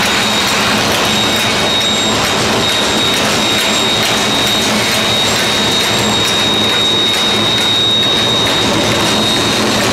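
Automatic pillow-type flow-wrap packaging machine running at a steady pace: continuous mechanical noise with a hum and a thin, high steady whine.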